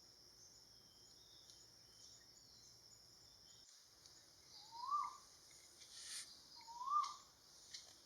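Blue-winged pitta calling: two clear whistles in the second half, each rising then dropping, about two seconds apart. A steady high insect hiss runs underneath.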